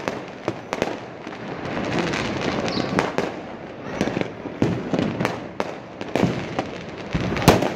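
Many fireworks going off across the sky: dense, irregular bangs and pops at different distances over a continuous background din, with one louder bang near the end.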